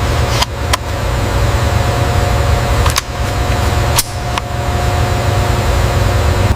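Steady mechanical hum and hiss over a low rumble, broken by a few sharp clicks.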